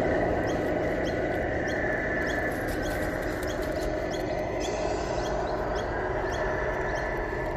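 Electric 1:14 scale Tamiya RC trucks running past on pavement, a steady hum of motors and tyres that eases off at the start as the loaded low-loader rig pulls away. Short high squeaky chirps repeat about twice a second over it.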